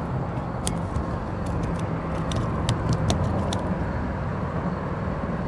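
Steady low engine drone with no change in pitch, with several light, sharp clicks in the first three and a half seconds.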